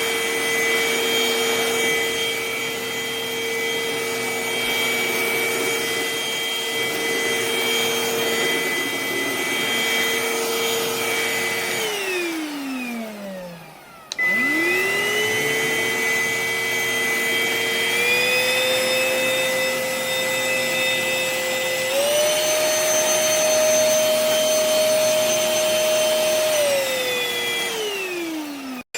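Tdyon cordless stick vacuum's motor running with a steady whine. About twelve seconds in it is switched off and spins down. It restarts and spins up, steps up twice to higher suction settings, and near the end winds down again.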